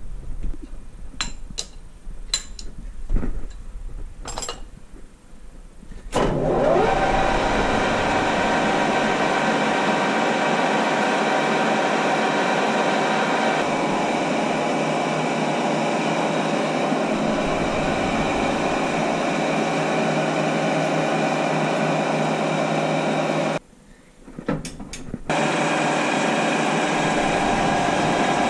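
Gear-driven metal lathe with a twist drill in the tailstock chuck boring into metal bar stock. A few clicks and knocks come first, then about six seconds in the lathe spins up to a loud, steady hum with many tones. Near the end it drops out briefly and comes back.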